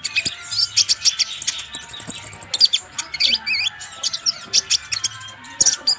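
Van Hasselt's sunbird (kolibri ninja) singing a fast, high-pitched string of sharp chirps and twitters with hardly a pause, some notes sweeping downward. This is the vigorous, continuous song that bird keepers call gacor.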